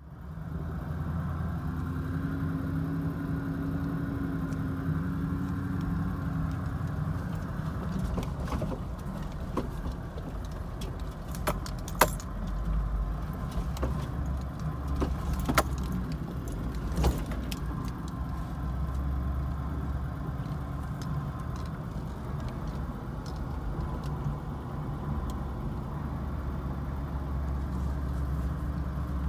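A four-wheel drive vehicle driving along a rough dirt track, heard from inside the cab: a steady low engine and road rumble, with sharp rattles and knocks over the bumps, most of them between about 8 and 17 seconds in.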